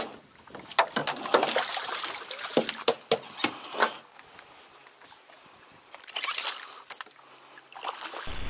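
Water splashing and sloshing as a hooked black bass thrashes at the surface beside a rowboat and is brought to the landing net. There is a run of sharp splashes and knocks in the first few seconds, and another burst of splashing about six seconds in.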